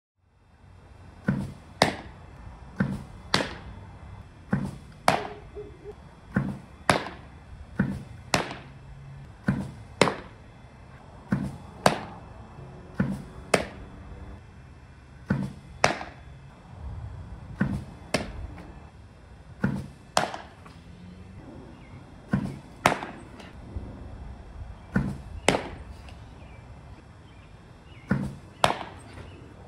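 Baseballs smacking into a catcher's mitt in a repeated receiving drill. The sharp impacts come mostly in pairs about half a second apart, a pair roughly every second and a half.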